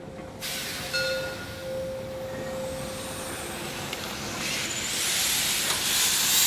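Steam locomotive standing and hissing steam: a steady hiss that grows louder about four and a half seconds in.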